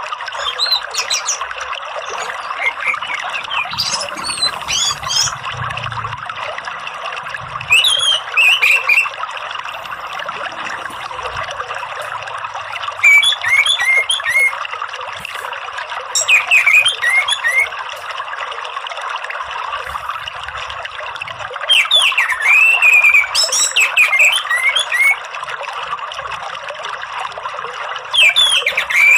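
Orange-headed thrush (anis merah) singing in short bursts of quick, high, twittering phrases every few seconds, over a steady sound of trickling water.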